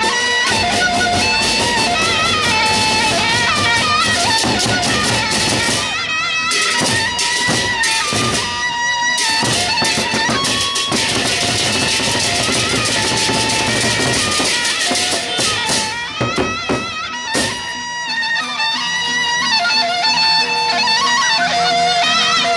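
Gendang beleq ensemble music: drums struck in a steady pattern under a wavering melody line.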